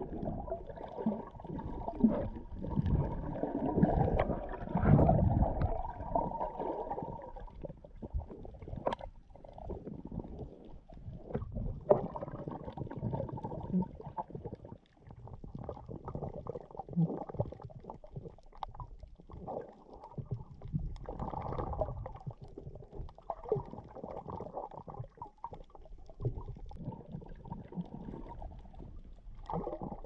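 Muffled underwater water noise picked up through a GoPro action camera's waterproof housing: an irregular low rumbling and gurgling of moving water, with a few sharp clicks. It is louder for the first several seconds, then settles lower.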